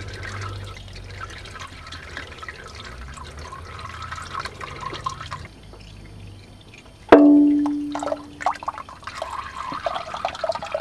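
Used motor oil pouring and dripping from the removed oil filter and drain hole into a drain pan. About seven seconds in, a single sharp metallic clang rings out for a second or so, followed by scattered small spatters and clicks.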